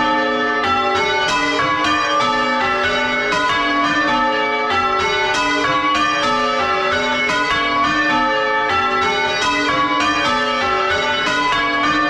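A ring of six chip-tuned church bells with a tenor of about 9 cwt, rung full-circle in change ringing and heard close up inside the belfry. The strokes come in a steady, even succession, each bell ringing on under the next.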